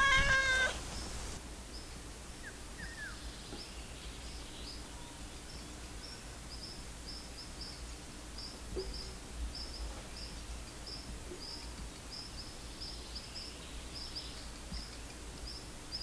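A domestic cat meows once at the start. Then a redstart's short, high alarm calls repeat about twice a second, the female's alarm at the cat's presence near her nest.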